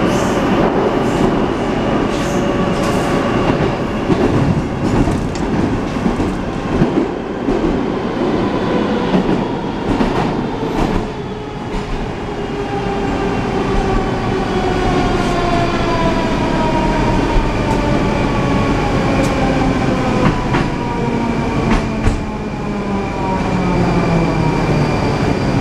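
Inside a moving Moscow metro 81-740/741 'Rusich' car: running noise and wheels clattering over rail joints. In the second half, a whine from the electric traction motors falls steadily in pitch as the train slows.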